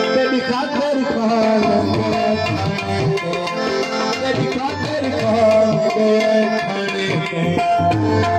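Live music with a steady percussive beat under held melodic notes.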